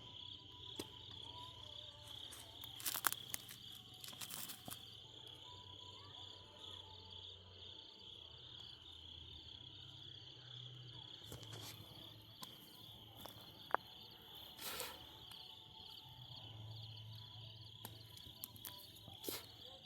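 Steady, faint chorus of insects chirping, with a few brief clicks and rustles of handling in between.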